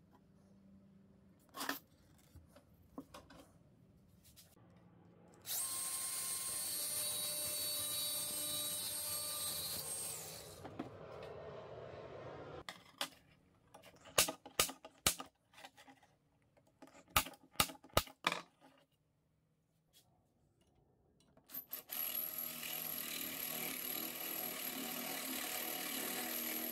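A power tool runs steadily for about five seconds. Then a spring-loaded automatic centre punch snaps sharply about a dozen times against a thin metal strip. Near the end an electric drill runs steadily, its twist bit boring through the strip into the wood block beneath.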